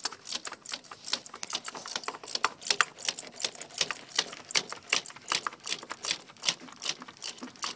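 Ratchet wrench clicking in quick, uneven runs of about five clicks a second, as a spark plug is worked in or out of the engine.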